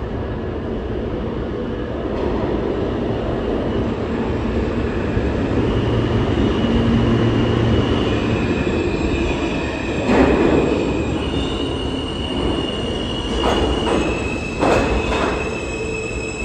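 New York City Subway R160A train pulling into a station on a curve: a rising rumble of wheels on rail, with high steady squealing from about five seconds in. Short louder bursts of noise come about ten seconds in and again around fourteen to fifteen seconds in.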